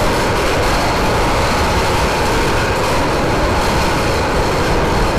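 Aircraft carrier USS Gerald R. Ford's heavy steel anchor chain paying out as the anchor drops, its links clattering through the anchor room in a loud, continuous rattle.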